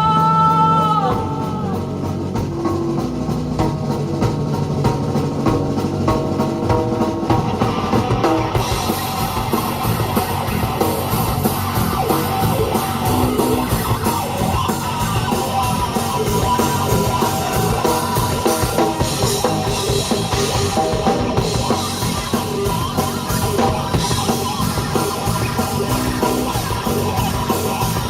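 Rock song in an instrumental break, with drum kit and electric guitar. A held sung note fades out about a second in, and the drums grow fuller and brighter with cymbals about eight seconds in.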